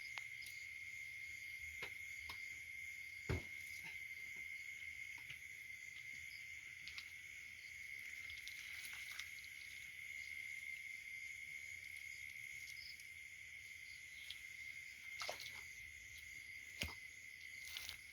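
Crickets trilling steadily in one unbroken high tone, with a few soft clicks and knocks scattered through, the sharpest about three seconds in.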